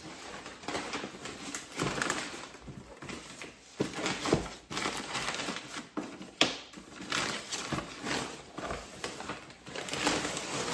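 Gift-wrapping paper rustling and crinkling as a large wrapped present is unwrapped by hand, with a few sharper crackles partway through.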